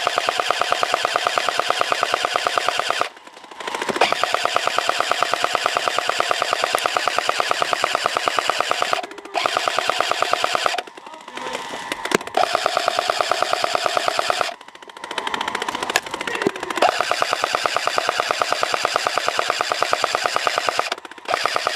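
Airsoft M249 SAW firing long full-auto bursts, a fast, even rattle with several short breaks between bursts.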